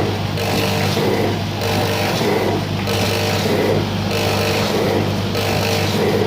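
Center-seal granule filling and packing machine running: a steady motor hum under a working cycle that repeats about every 1.2 seconds as each bag is filled and sealed.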